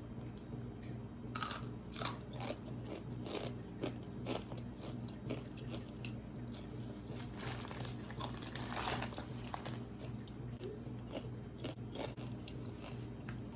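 A person biting and chewing crunchy food close to the microphone, with irregular crunches throughout, over a steady low hum.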